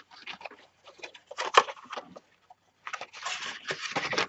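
Kraft cardboard box flaps being handled and folded: scattered light taps and papery scraping rustles. The rustling gets busier from about three seconds in.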